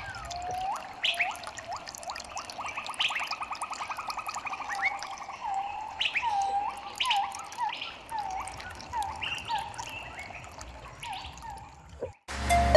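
Birds chirping and calling: a string of short hooked notes and quick high chirps, with a rapid trill a few seconds in. Near the end the birdsong cuts off and electronic music starts.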